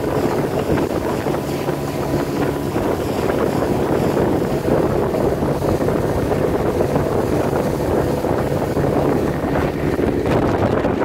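Small boat's outboard motor running steadily at speed over choppy water, with water rushing and spraying along the hull, irregular knocks of the hull on the chop, and heavy wind on the microphone.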